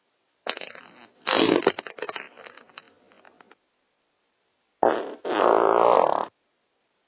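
Two fart sound effects separated by dead silence. The first comes about half a second in: a short blast, then a louder burst that trails off in a sputter. The second comes about five seconds in: a brief pop, then a steady, pitched fart lasting about a second.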